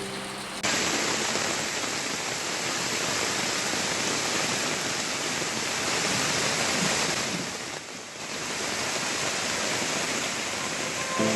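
Steady rushing water, cutting in abruptly about half a second in and dipping briefly around eight seconds in.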